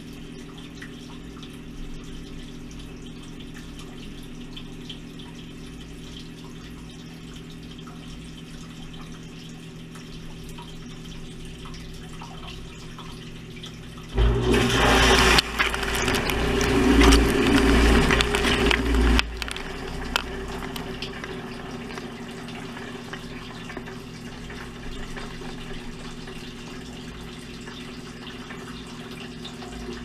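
Dishwasher running, heard from inside the tub: its wash pump hums steadily under water sloshing. About halfway through, a loud rush of spraying water hits for about five seconds, then it drops back to the steady hum.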